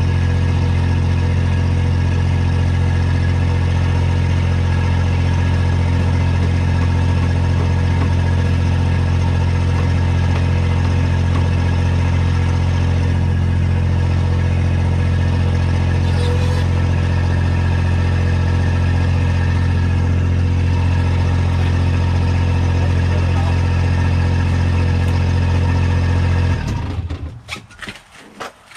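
Yuchai YC18-2 mini excavator's diesel engine idling steadily with a low hum, cutting off abruptly near the end. A few light clicks and knocks follow.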